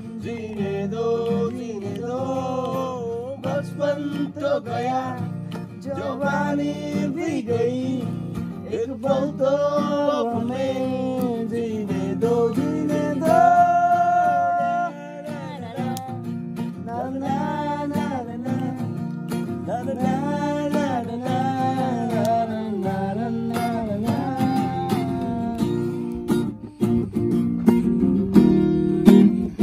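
Music: a song with a singing voice over a strummed acoustic guitar.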